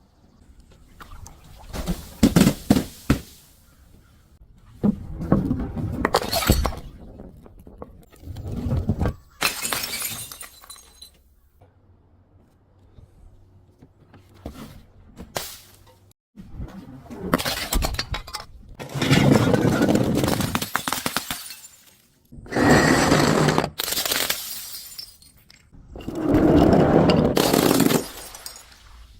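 Glass being broken and crushed in repeated bursts of crunching, cracking and shattering, with short pauses between them.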